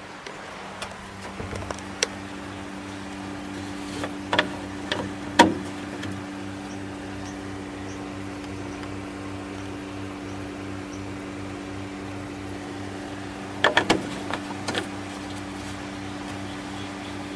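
Steady low hum from the fermenting fridge, with scattered clicks and knocks as the blue screw cap of a plastic fermenter is taken off and later put back on. The sharpest knock comes about five seconds in, and a cluster of clicks comes near the end.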